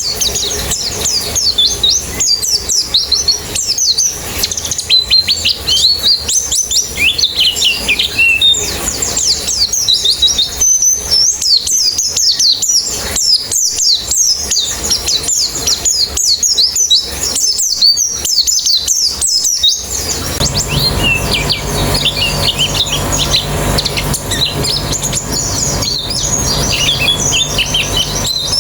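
A group of white-eyes (pleci) chirping and twittering together in dense, rapid, high-pitched calls. About two-thirds of the way through, a steady low hum starts underneath the birds.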